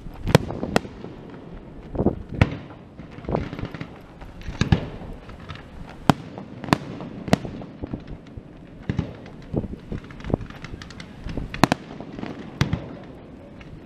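Fireworks display: aerial shells bursting with sharp bangs at irregular intervals, several loud ones and many smaller pops between them.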